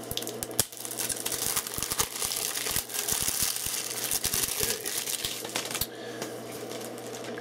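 Plastic wrapping crinkling and crackling as it is pulled off a new Blu-ray case, a dense run of small clicks that tails off near the end.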